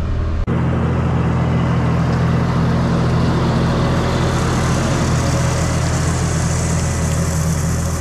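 John Deere 5075M tractor's diesel engine running steadily as the tractor drives past. About half a second in the sound dips briefly and changes from the cab-interior sound to the engine heard from outside.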